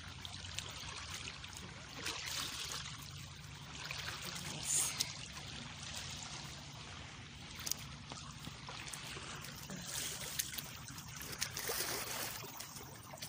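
Shallow seawater washing and trickling over rocks at the shoreline, an even splashing hiss that swells and eases. A few sharp clicks are mixed in, the loudest about five seconds in.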